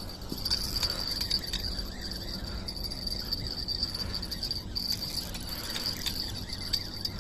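A chorus of night insects, crickets or their kin, trilling steadily in a high, slightly pulsing band, with a low rumble underneath.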